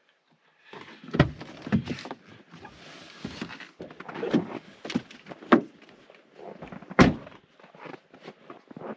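A string of irregular knocks and thumps, as of a door and things being handled, the loudest about a second in and again about seven seconds in.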